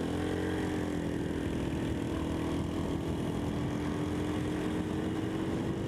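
A 150cc Chinese scooter's single-cylinder four-stroke engine running under way, its pitch rising briefly at the start and then holding steady, with wind rush on the helmet microphone.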